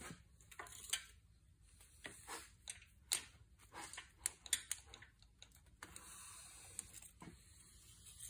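Faint, irregular clicks and taps of a rubber coolant hose and its metal hose clamps being handled and pushed onto an engine fitting, with a faint steady hiss near the end.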